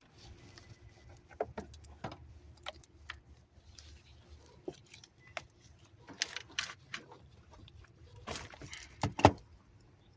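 Metal hand tools clinking and knocking irregularly against bolts and engine-bay metal while the starter's mounting bolts are undone, with the loudest knocks near the end.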